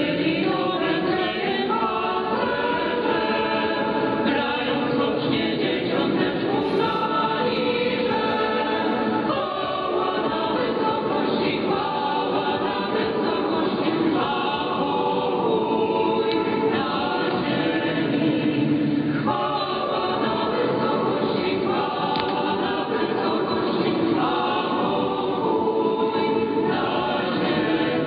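Choir singing without a break, received as a longwave AM radio broadcast with the audio cut off above about 5 kHz.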